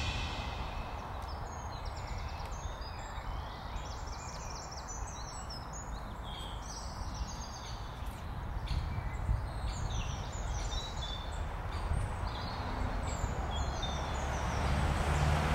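Woodland ambience: several birds singing with short, scattered chirps and trills, over a low steady rumble.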